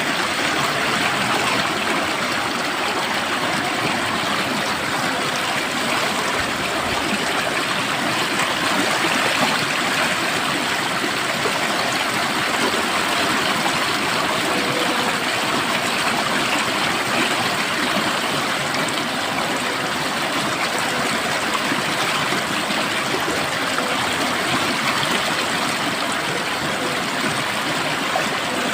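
Flowing water, a steady, even rush with no breaks or changes.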